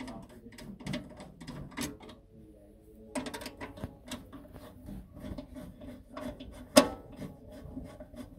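Screwdriver tightening screws into a sheet-metal bracket inside a projector's housing: a run of small clicks, taps and scrapes, a few a second, easing off for a moment about two seconds in, with one sharp metallic knock near the end.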